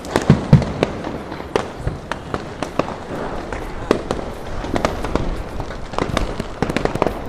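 Fireworks going off: a steady string of sharp, irregular bangs and pops, with two deeper, louder booms about half a second in.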